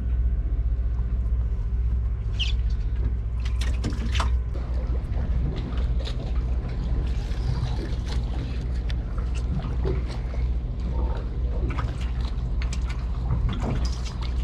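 A steady low mechanical hum, with water lapping and trickling against a small boat's hull and a few small clicks and splashes.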